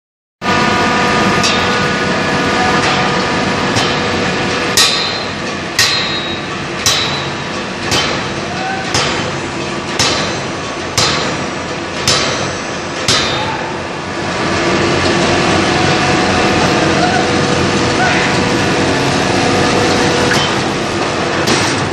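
Open-die hydraulic forging hammer striking a hot workpiece: about nine ringing blows, roughly one a second, over the steady din of forge-shop machinery, which carries on alone after the blows stop.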